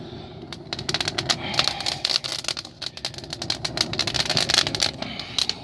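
Dry pine twigs crackling and popping rapidly as they catch fire in a rocket stove's burn chamber, over a steady low rush.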